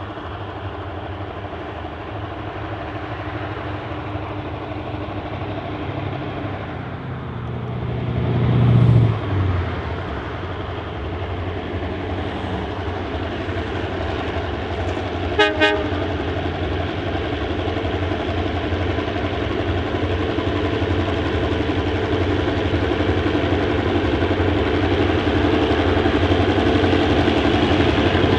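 Five EMD diesel-electric locomotives, B-class B74 leading four T-class units, working hard under load on a climb with a train of grain wagons. The engines drone steadily and grow louder as they approach. There is a brief louder low rumble about eight seconds in, and two very short horn toots a little past halfway.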